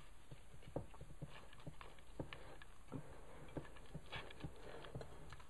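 Faint, irregular light taps and clicks, a few a second, of hands working inside a container while it is greased with butter.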